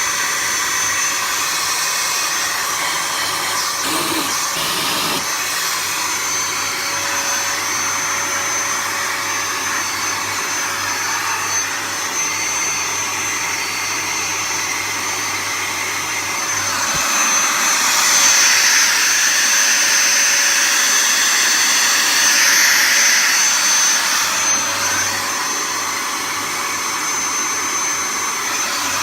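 Henry canister vacuum cleaner running on a test after repair: a steady motor whine over the rush of air, the air noise swelling for several seconds past the middle. The motor sounds pretty decent, a healthy-running motor.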